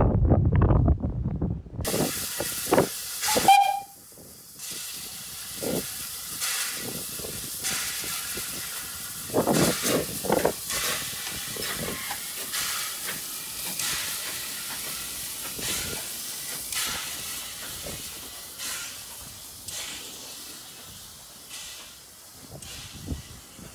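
LB&SCR A1X Terrier 0-6-0 tank locomotive hissing steam at close range, with a short whistle-like note about three and a half seconds in and louder steam puffs now and then as it works. A loud low rumble fills the first two seconds.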